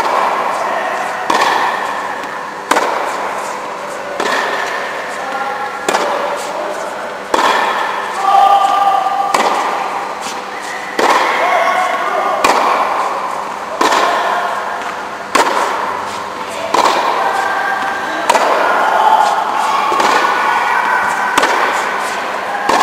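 Tennis balls struck by rackets in a steady rally: a sharp pop about every second and a half, each fading out in the echo of an indoor court.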